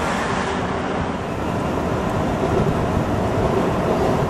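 Washington Metro train approaching on elevated track: a steady rushing noise mixed with wind on the microphone, with a faint steady tone from the train coming in near the end.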